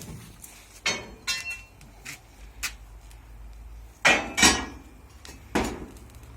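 Irregular knocks and clanks of parts and tools being handled during construction work, about eight in all, the loudest a pair about four seconds in.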